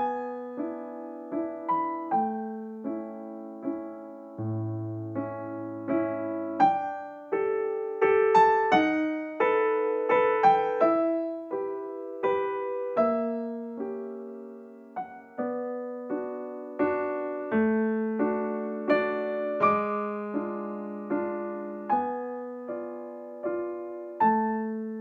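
Background music: a gentle solo piano melody, notes struck one after another and left to ring.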